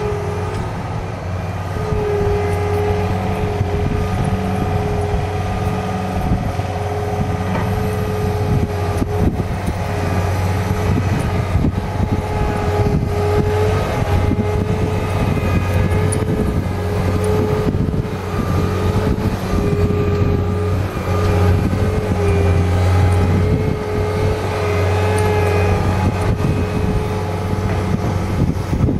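Cat 239D compact track loader's diesel engine running steadily under load, with a steady whine over the low drone and irregular knocking and clatter as it pushes a SharpGrade grading box through soil.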